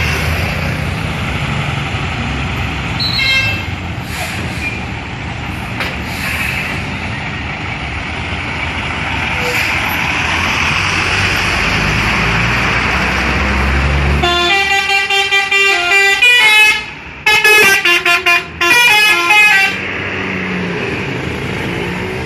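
A Mahessa bus's telolet horn, a multi-tone air horn, plays a quick stepping tune of high notes in two phrases for about five seconds, starting about two-thirds of the way through. Before it, the bus's engine and traffic run steadily, with one short high toot about three seconds in.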